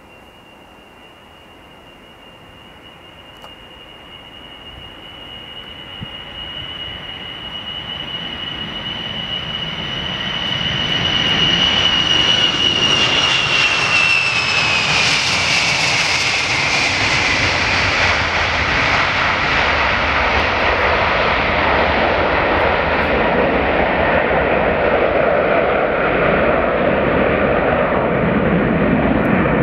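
Ilyushin Il-62 freighter taking off, its four rear-mounted jet engines at takeoff power. A high engine whine grows steadily louder as the jet rolls down the runway, drops in pitch as it passes about halfway through, and gives way to a loud, steady jet roar as it climbs away.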